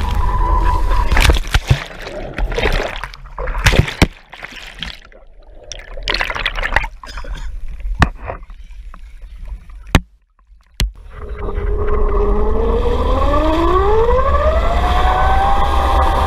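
Wakeboard wipeout: heavy splashing water and sharp knocks as the handheld action camera hits the water, then softer sloshing and gurgling with brief dropouts while the rider floats. About eleven seconds in, the rider is towed up again and a steady rush of water and wind sets in, with a whine that rises in pitch and then holds as the tow speeds up.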